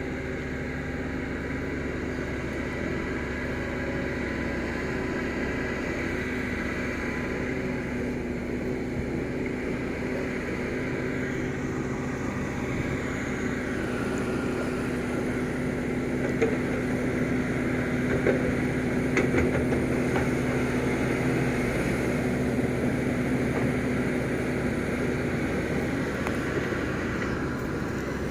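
Doosan DX225LCA excavator running steadily while digging, with a few sharp knocks about two-thirds of the way through.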